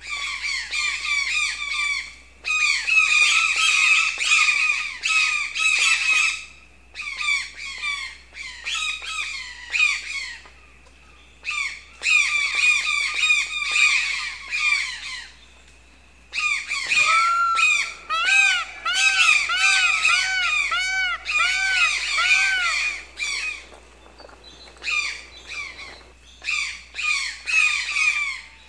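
Birds squawking: bouts of rapid, harsh chattering calls with short pauses between them, and a run of about eight evenly spaced, arching calls in the middle.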